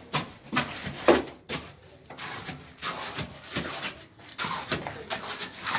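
A wooden stick jabbed repeatedly into wet concrete in wooden stair formwork, an irregular run of strokes about twice a second. The concrete is being rodded by hand to settle it into the form.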